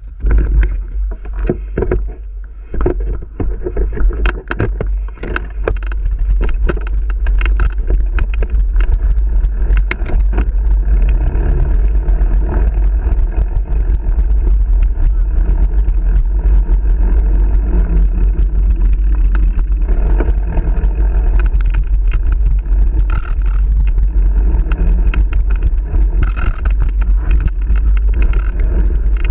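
Wind buffeting the microphone of a camera riding along on a mountain bike on a dirt trail, with tyre noise and the knocks and rattles of the bike over bumps. It is choppier for the first few seconds, then steady and loud once the bike is under way.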